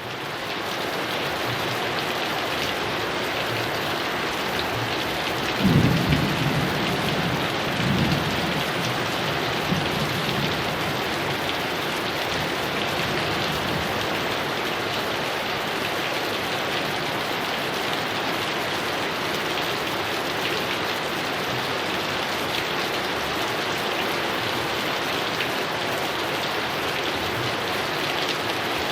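Heavy rain falling steadily, with a roll of thunder about six seconds in that rumbles on in two weaker swells over the next few seconds.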